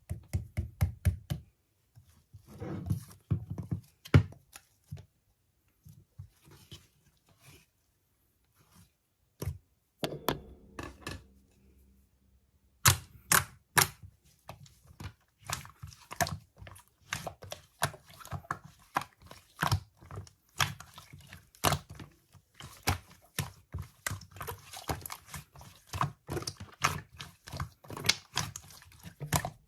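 Rapid, irregular clicking and tapping, like keys being typed. There are some duller thumps and pauses in the first half, and the clicks become dense and continuous about halfway through.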